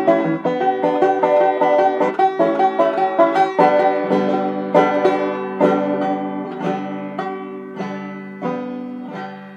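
A banjo picked by a learner practising. A quick run of rolling plucked notes gives way, about three and a half seconds in, to slower single plucks left ringing, and the playing fades toward the end.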